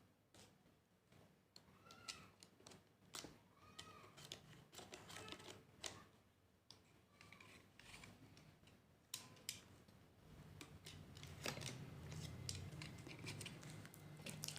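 Faint unboxing sounds as a cardboard shipping box is cut open and its packaging handled: scattered clicks, scrapes and short squeaky rubbing sounds. A low hum comes in about ten seconds in.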